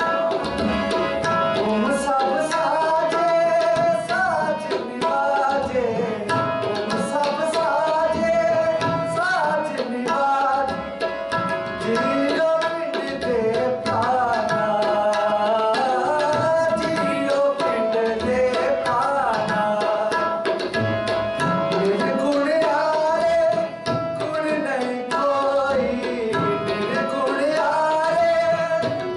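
Sikh kirtan: a man singing a gliding devotional melody to a Nagi harmonium, with tabla keeping the rhythm. The harmonium holds a steady note under the voice throughout.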